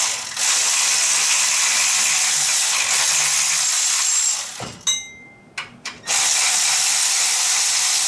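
Cordless power ratchet running in two long, steady stretches, about four and a half seconds and then about three, with a short pause and a few clicks between them.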